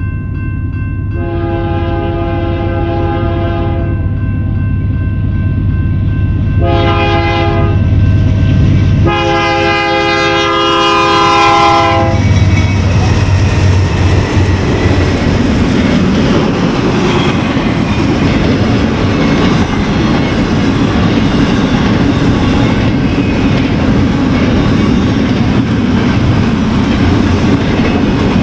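BNSF diesel freight locomotives sound their multi-note horn for the grade crossing: a long blast, a short one and another long one, over the low drone of the engines. About twelve seconds in the horn stops and the steady rumble and clickety-clack of double-stack intermodal well cars rolling past takes over.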